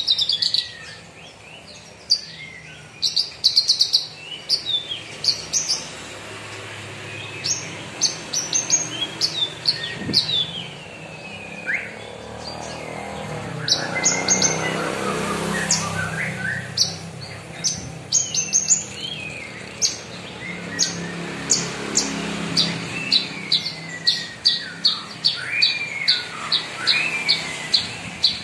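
Caged Horsfield's bush lark (branjangan) singing continuously: sharp high chirps, trills and down-slurred whistles. Near the end it turns into a fast, even run of repeated notes, about four a second.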